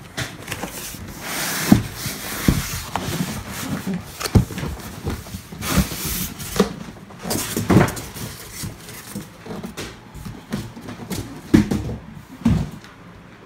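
Cardboard shipping box being flipped over and slid off a foam-packed subwoofer: irregular knocks and thumps with cardboard scraping and rustling between them.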